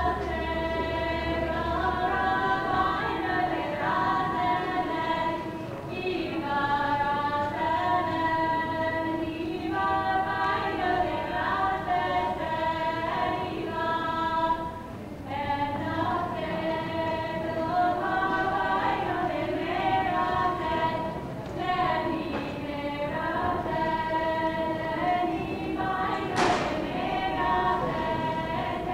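Women's trio singing a Slavic folk song a cappella in close harmony, in long held phrases with short breaks between them. A brief sharp click sounds near the end.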